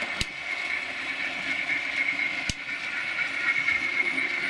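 Model railway train running on the track: a steady whirr of wheels and motor, with two sharp clicks, one just after the start and one about halfway through.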